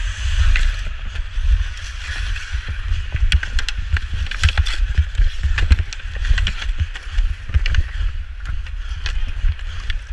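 Ice hockey skate blades scraping and carving the ice in a steady hiss, with sticks and puck clacking on the ice many times, over a low rumble.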